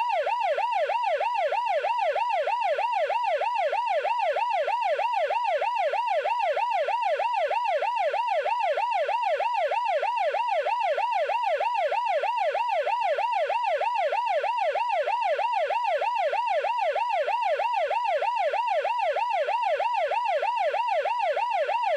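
Emergency-vehicle siren sounding continuously in a fast yelp, its pitch sweeping up and down about twice a second, steady throughout.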